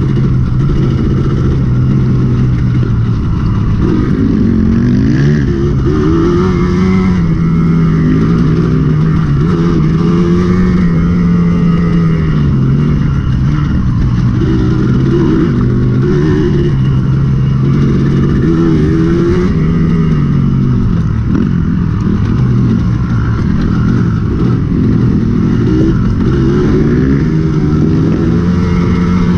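Dirt bike engine running continuously, its pitch rising and falling every few seconds with the throttle, over a steady low rumble.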